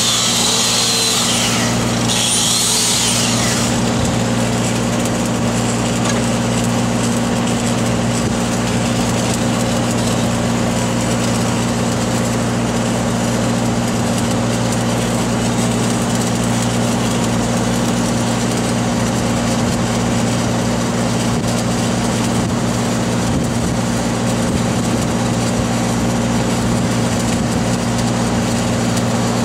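Engine-driven welding machine running at a steady, constant drone. A harsh high hiss, typical of grinding or arc welding on the pipe, comes in two short bursts in the first few seconds.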